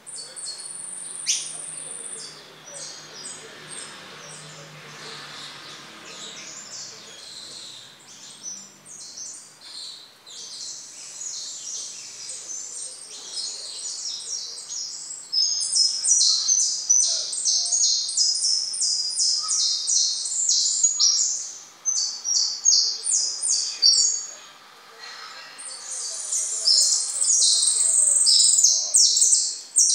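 Caged finch practising its song: a long, rambling run of rapid high chirps and trills. It grows louder about halfway through and breaks off briefly twice near the end.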